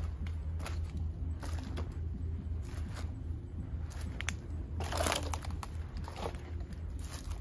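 Footsteps crunching through dry leaf litter and fallen palm fronds, in irregular crackly steps, the loudest about five seconds in, over a steady low hum.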